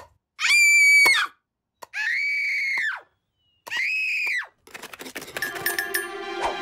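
Three high-pitched cartoon shrieks, each held for about a second and dropping at the end, with short gaps between them; a busy swell of music and sound effects builds up over the last two seconds.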